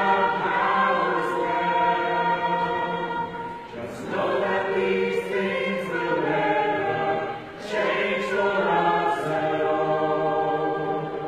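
Choir singing in harmony, long held phrases with short breaks between them.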